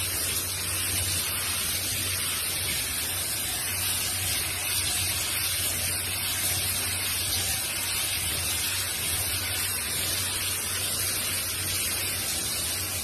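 Handheld shower sprayer spraying water onto a dog's wet coat: a steady hiss of running water.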